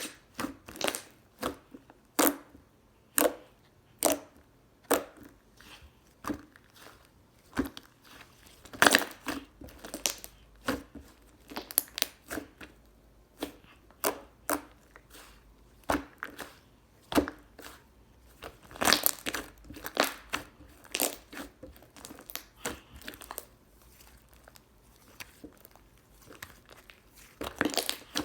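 Slime being squeezed and pressed by hand, giving short sharp crackling pops and squishes at irregular intervals, with busier bursts now and then.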